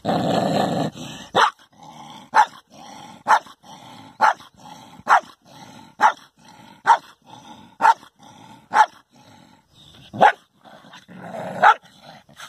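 A dog growling, then barking sharply about once a second, with low growls between the barks.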